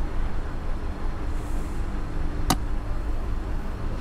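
Steady low vehicle rumble, with a single sharp click about two and a half seconds in.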